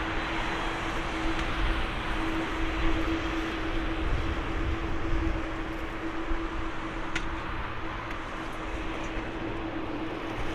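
The two Rolls-Royce Trent XWB turbofans of an Airbus A350-900 at takeoff thrust as the jet accelerates down the runway: a steady rush of engine noise with a steady low tone in it.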